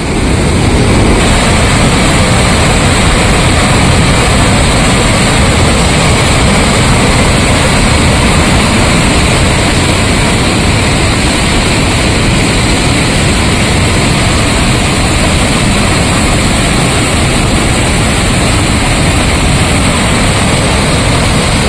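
Floodwater rushing through the open spillway gates of a dam and churning below them: a loud, steady, unbroken rush of water.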